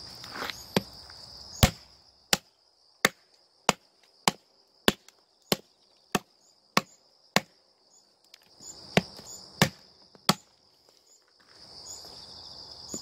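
Hand-forged Korean nadae (heavy chopping knife) chopping into a wooden branch on a log block: about ten sharp chops in a steady rhythm, roughly one every 0.6 s, then three more after a short pause.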